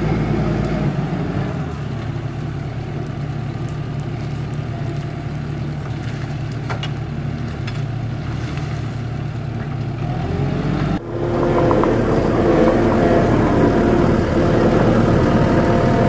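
Kubota SVL compact track loader's diesel engine running steadily under load as it works a TMK tree shear, with a few light cracks of brush. About eleven seconds in the sound breaks off for a moment and comes back louder.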